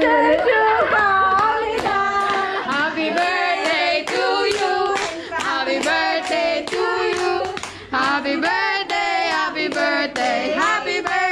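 Several voices singing together, with hands clapping along in a steady beat of about two claps a second.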